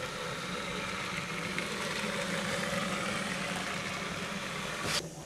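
LEGO 9-volt train motor driving the train along plastic 9V track with metal rails: a steady whirring hum of motor and wheels that swells a little as the train passes and cuts off sharply near the end.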